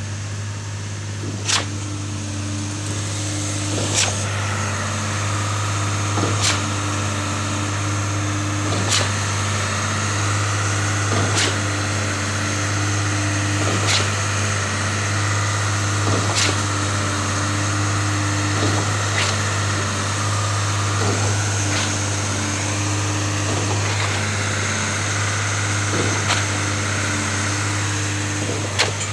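Concrete pump running steadily under a low engine hum, with a sharp knock about every two and a half seconds as the pump changes stroke and pushes each surge of concrete.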